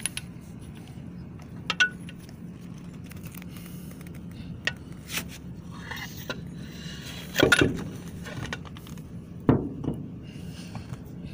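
Metal clinks and knocks as a Yamaha outboard's lower unit and driveshaft are pulled out of the motor and set down on the boat deck, the heaviest knocks about seven and a half and nine and a half seconds in. A steady low hum runs underneath.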